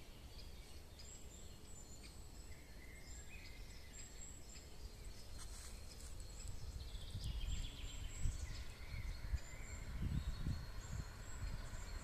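Several songbirds singing and calling, many short high chirps and warbles overlapping throughout. Low gusty rumble of wind on the microphone grows stronger in the second half.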